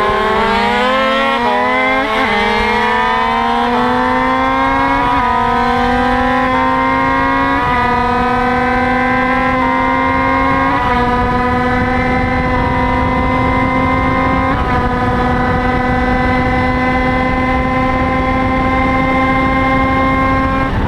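Kreidler racing motorcycle's small two-stroke engine at full throttle, pulling hard out of a corner and down a straight. Its high, buzzing note climbs steadily, dipping briefly at each of several upshifts.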